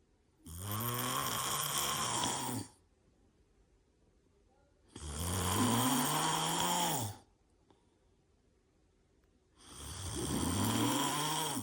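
Three long snores, each about two seconds, with a low hum that rises and then falls in pitch, separated by silent gaps.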